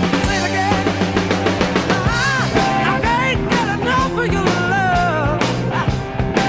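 A 1970s rock recording playing, with drums, guitar and a lead melody line that bends and wavers.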